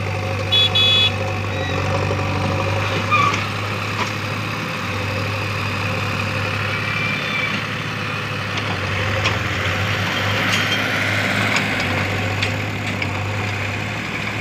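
Diesel engine of a JCB backhoe loader running steadily as it digs with its backhoe bucket. A short vehicle horn sounds twice about half a second to a second in, and a few sharp knocks come through later.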